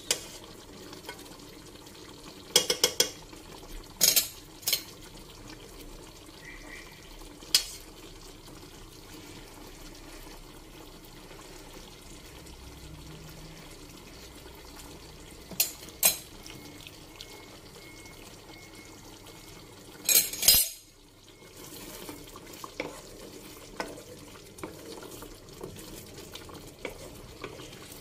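A metal fork clinking and scraping against a nonstick pan while thick chicken curry is stirred: a handful of sharp clinks spread out, over a steady low background hiss. After a brief break about two-thirds through, the stirring goes on with many smaller, softer ticks and scrapes.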